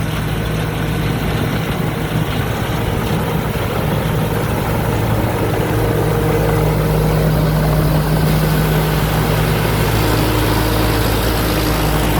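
Combine harvester's J08C diesel engine running steadily with a continuous low hum.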